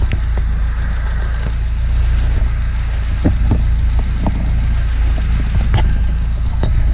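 1978 MGB's 1.8-litre four-cylinder engine running steadily, a deep, even drone, with a few light clicks and knocks over it.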